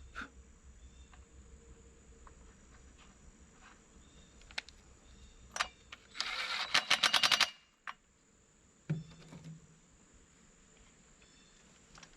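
Small clicks and taps of hand repair work on a chainsaw. About six seconds in comes a fast run of rattling clicks with a hiss, lasting about a second and a half.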